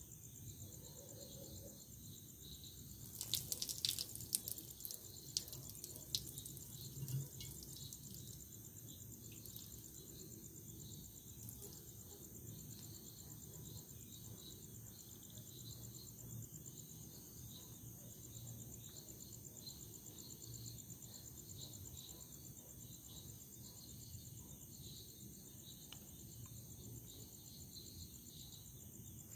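Urine spattering onto a glass beer bottle and a concrete floor, a few seconds of sharp crackling splashes starting about three seconds in. Crickets chirp faintly and steadily throughout.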